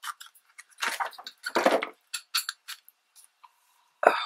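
Paper handling: a collage base layered with glued magazine strips rustling and crinkling as it is flexed and moved, with a few light clicks and a sharper knock on the table near the end.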